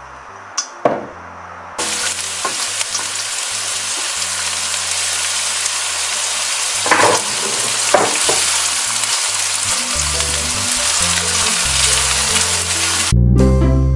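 Chopped shallots and garlic sizzling in hot olive oil in a stainless steel wok as they are stirred with a silicone spatula. The sizzle starts suddenly about two seconds in and stops sharply near the end, leaving light background music.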